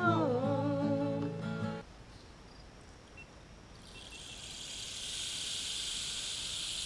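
A singer holds the final note of a folk song over two strummed acoustic guitars, and the music stops about two seconds in. After a short pause, a soft even hiss like falling rain fades in and holds: a rain effect for a spoken rain poem.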